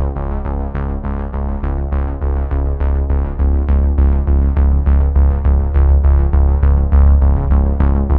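Background electronic music: synthesizer chords over a steady, fast beat.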